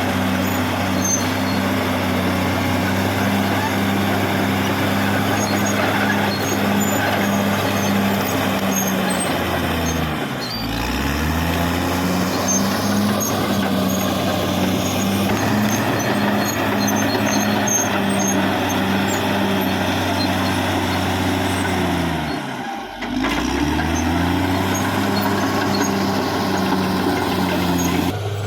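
Caterpillar D6R XL bulldozer's diesel engine running steadily at working revs. The pitch sags briefly and climbs back twice, about ten seconds in and again near the end.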